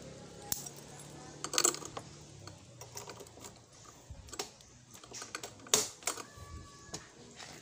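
Low motor hum that fades out about two seconds in, with scattered sharp clicks and knocks; the loudest come about a second and a half in and just before six seconds.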